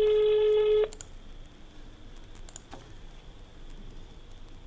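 Telephone ringback tone of an outgoing call ringing unanswered at the other end. One steady beep of about a second at the start, then about four seconds of quiet line with a few faint clicks.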